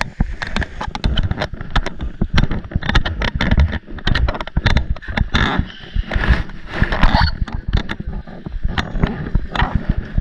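Handling noise on a handheld camera's microphone: a continuous low rumble broken by many quick knocks and rustles as the camera is moved about.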